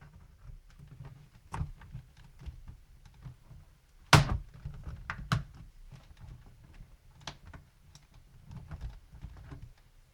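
Scattered small plastic clicks and snaps as a laptop keyboard is pried up with a screwdriver and its retaining latches pop free. The loudest snap comes about four seconds in, with another about a second later.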